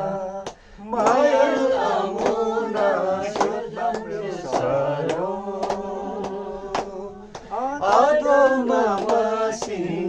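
A group of men and women singing a chant-like song together, with hand claps keeping time about twice a second. The singing breaks off briefly just under a second in, then carries on.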